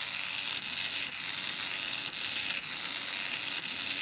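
Small DC gear motor with a plastic gearbox running steadily: a hissing whir of motor and gears with a faint pulse about twice a second.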